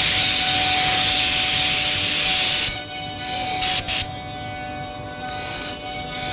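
CNC router spindle running at high speed with a steady whine while a 12 mm diamond cutter makes a roughing pass through a furniture facade, giving a loud hissing cut. The cut stops about two and a half seconds in, with two short bursts of cutting just before the four-second mark, while the spindle keeps whining.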